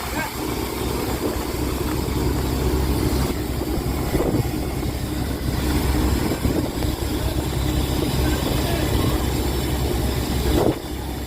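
Fishing boat's engine running steadily under a constant hiss; the engine note drops away near the end.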